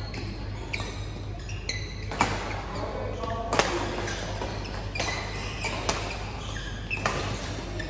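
Badminton rally: sharp racket strikes on the shuttlecock about once a second, the loudest a little past halfway, with sneakers squeaking briefly on the court floor, over a steady low hum.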